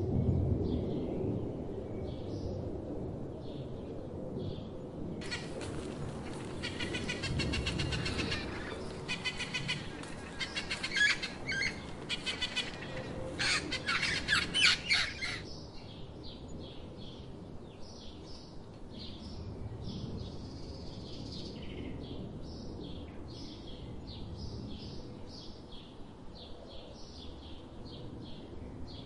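A flock of budgerigars chattering and warbling for about ten seconds, then a bird giving short high chirps in quick repeated succession over low background noise.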